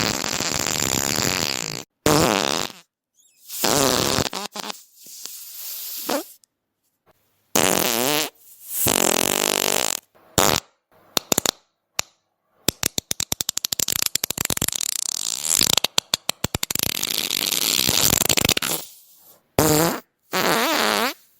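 A string of fart sound effects, about a dozen separate farts with short silent gaps between them. Some are long and drawn out, some are short, and two in the middle are rapid sputtering runs.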